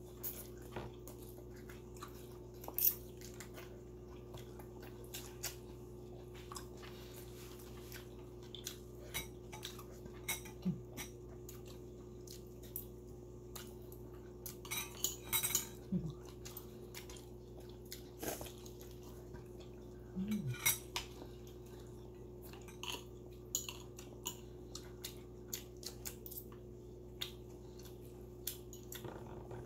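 Eating sounds at a table: scattered clicks and light clinks of food being picked from a plate, with mouth sounds of chewing, over a steady low hum. A few brief low murmurs come through.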